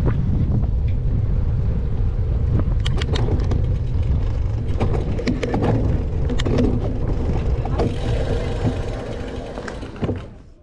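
Steady low rumble of wind and tyres on asphalt picked up by a GoPro mounted on the front of a gravel bike while riding, with scattered light clicks. It fades out near the end.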